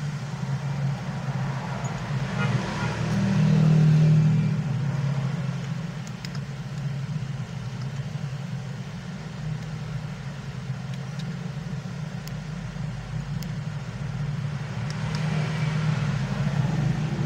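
Steady low hum of road traffic, swelling louder as vehicles pass about three to four seconds in and again near the end.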